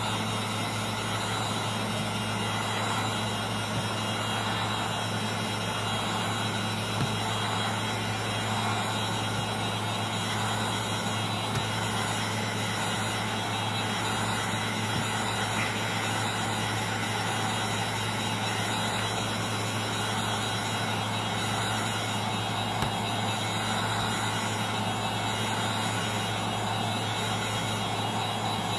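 Heat gun blowing steadily, a constant whooshing hum, as it heats the cracked glass to soften the adhesive.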